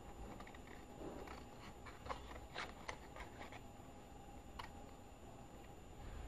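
Scissors cutting craft paper along a curved outline: a few faint, irregular snips.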